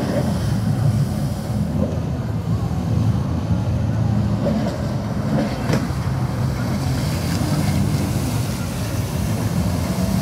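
Jet ski engine running hard through tight turns: a steady low drone that rises and falls a little.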